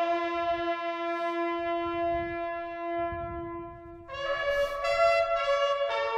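Slow brass music: a horn holds one long note for about four seconds, then steps up to a higher note.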